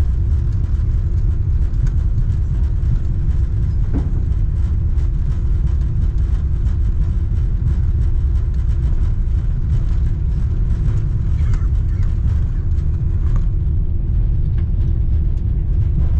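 Cabin noise inside an Airbus A340-300 rolling on the ground after landing: a steady low rumble from the wheels and the four CFM56 engines, with a constant hum and a few faint clicks and rattles.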